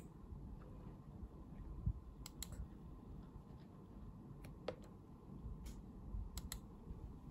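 Faint, scattered clicks at a computer, about seven short clicks spread unevenly, with a pair close together near the middle and another pair later on.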